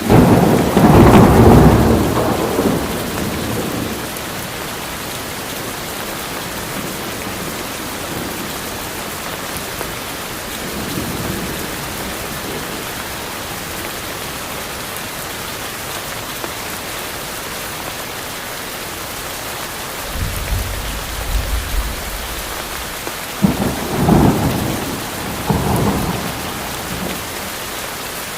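Steady heavy rainfall with thunder: a loud clap right at the start that rolls off over a few seconds, a low rumble a little past the middle, and two sharper cracks near the end.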